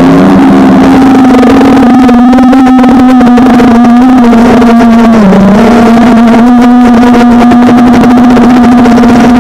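FPV quadcopter's electric motors and propellers whining loudly, heard close up through the drone's onboard camera microphone. The whine holds a steady pitch, dips briefly about five seconds in, then comes back.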